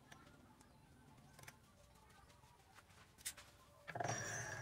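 Light metallic clicks of tools and parts handled against a stopped lathe spindle, with one sharper click about three seconds in. From about four seconds comes louder metal-on-metal scraping with a brief ringing, as a tapered roller bearing is pushed onto the steel spindle by hand.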